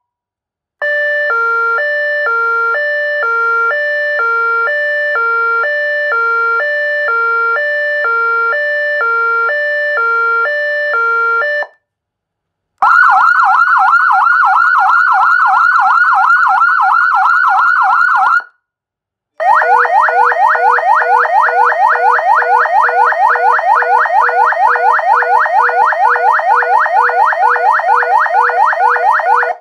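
Electronic siren cycling through its tones. First a two-tone hi-lo alternation, about one and a half changes a second, that cuts off abruptly. Then, after a short gap, a fast warbling yelp. Then, after another brief gap, a rapid warble that runs on.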